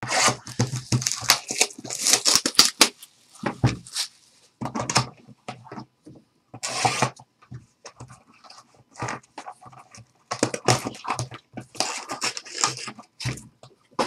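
Plastic shrink wrap being torn and crinkled off a cardboard trading-card box, then the box lid and inner packs being handled and shuffled, in irregular bursts of crackling and rustling with short pauses.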